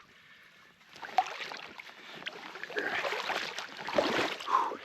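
A person wading through water over deep, soft silt: uneven splashing and sloshing steps that start about a second in and grow louder toward the end.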